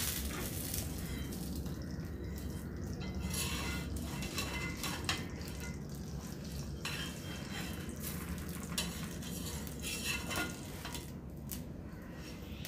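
Steel slotted spatula scraping and clicking against an iron appam pan as it loosens and lifts a cooked appam, in several short strokes over a faint steady sizzle.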